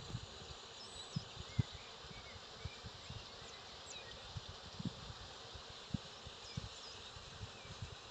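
Outdoor forest ambience: a steady hiss with scattered small bird chirps and irregular low thumps.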